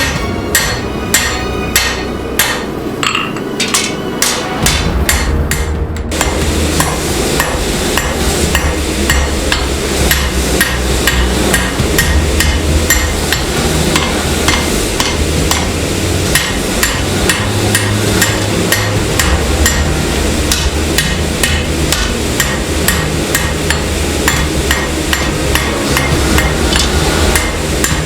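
Hammer blows forging 5160 spring steel: a steady run of sharp metal-on-metal strikes, two to three a second. A steady low hum runs underneath from about five seconds in.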